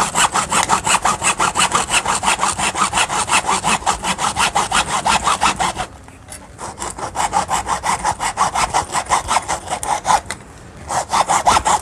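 Hand hacksaw cutting through the plastic housing of an RO water-purifier carbon filter cartridge, in quick, even back-and-forth strokes. The sawing breaks off briefly twice, about six and about ten seconds in.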